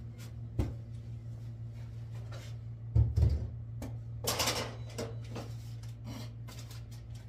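Objects being handled and set down: a knock, then two heavy thumps about three seconds in, followed by a brief scraping noise, over a steady low hum.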